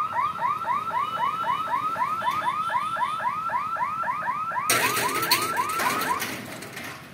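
Level-crossing gate warning alarm sounding while the boom barrier lowers. It gives a rapid electronic chirp about four times a second, each chirp sliding up and then down, and stops about six seconds in as the boom comes down. A burst of rushing noise joins it for the last second or so of the alarm.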